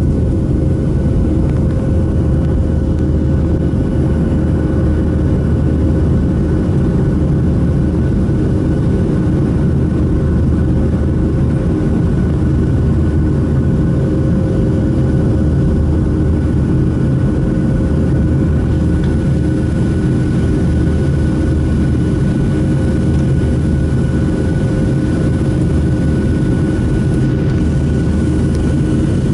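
Boeing 737-700's CFM56-7B jet engines heard from inside the cabin, running steadily. A loud, even rumble with a few constant whining tones and no rise or fall in pitch.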